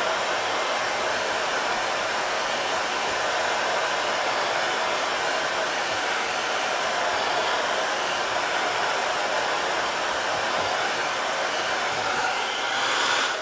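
Handheld hair dryer blowing steadily, used to dry freshly applied wood stain; it is switched off at the very end and its noise dies away.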